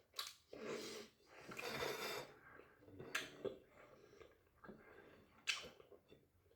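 A person eating a doner kebab close to the microphone: chewing and mouth noises, two long breaths near the start, and a few sharp smacks or bites spread through.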